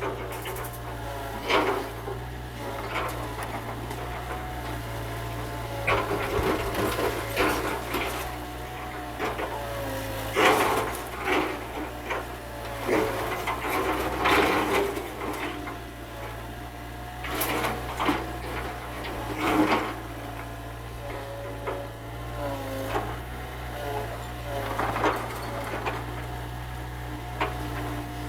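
Mini excavator at work: a steady engine hum with a whining tone that rises and falls as the machine moves, and repeated cracks and crunches of wood and debris being broken.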